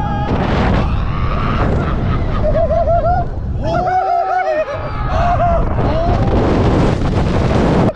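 Wind buffeting the microphone on a swinging giant pendulum thrill ride, with riders screaming and whooping in between the gusts.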